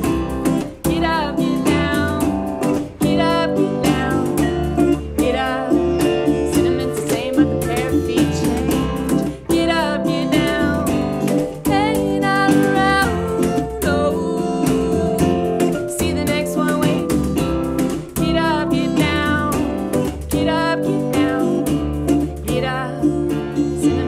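Live acoustic band playing: strummed acoustic guitar, upright bass and vibraphone, with a woman singing.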